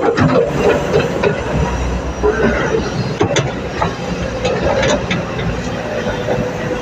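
Excavator working: a steady heavy machine noise with a low rumble, broken by frequent sharp metallic clicks and knocks.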